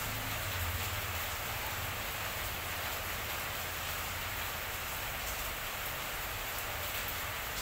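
Steady hissing background noise with no distinct events, and a low hum that is slightly stronger in the first second or so.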